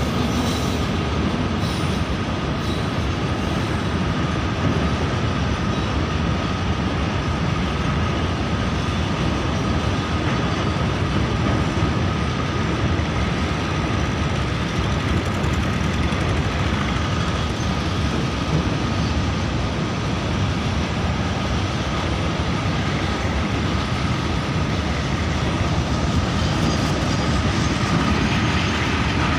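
Long freight train of covered goods wagons rolling past behind an electric locomotive: a steady rumble of wheels on the rails, with a thin steady whine running through it.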